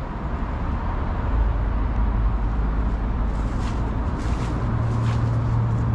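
2001 Trane Voyager 5-ton packaged air conditioner running: a steady low mechanical hum under the rush of its fans.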